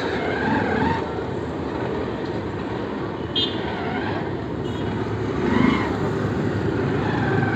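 Motorcycle ridden slowly through a busy city street: its engine and the surrounding traffic make a steady hum, with a brief high sound about three and a half seconds in.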